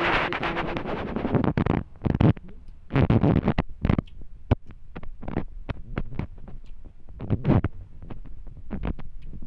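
Handling noise on a handheld phone's microphone as it is moved about: an irregular string of loud rubbing and scraping noises, heavy in the low end.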